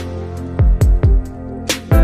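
Background music with a beat: deep bass drum hits under sustained chords.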